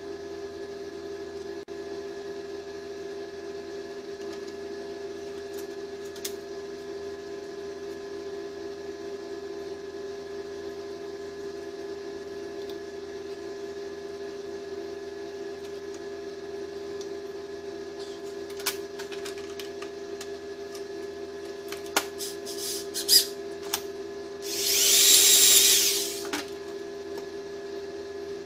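Workbench metalwork at a vise. A steady machine hum runs throughout, a few sharp metallic clicks and taps come in the second half, and near the end a harsh tool burst, like a small power tool, lasts about two seconds.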